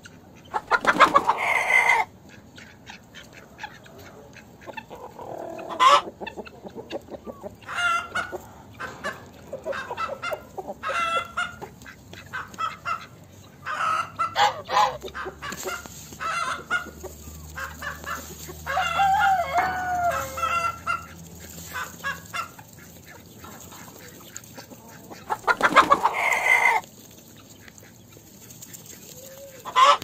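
Chickens clucking with short calls scattered throughout, and a rooster crowing loudly twice, about a second in and again near the end.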